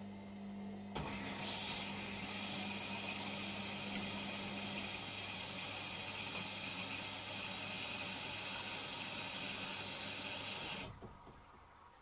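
Washing machine taking in water: a loud, even hiss of water rushing in starts about a second in and cuts off abruptly near the end, over a low hum.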